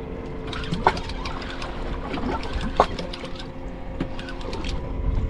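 A spinning fishing reel clicking in quick runs while a fish is fought on a bent rod, with two louder clicks about a second and three seconds in, over the steady hum of an idling boat engine and water against the hull.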